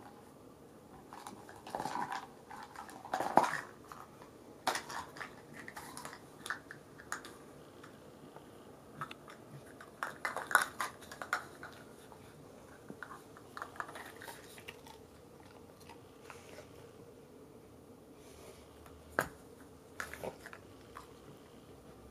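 Cavalier King Charles Spaniel nosing and tipping over small plastic cups on a carpet, with irregular light clicks and clatters of the cups and bursts of crunchy chewing as the dog eats the treats it finds. The louder clusters come about two seconds in and about ten seconds in, with one sharp click near the end.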